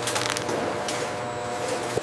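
Processing machinery running with a steady hum, with a quick burst of rattling clicks just after the start and a few lighter ticks later.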